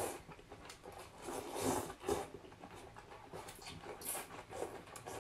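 Rice noodles of hủ tiếu soup being slurped from chopsticks, several short hissing slurps.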